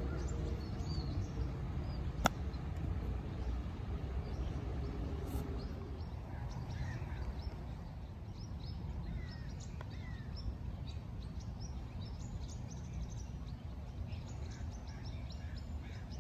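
A golf club strikes a golf ball once with a sharp click about two seconds in. Birds chirp in short high calls through the second half, over a steady low outdoor rumble.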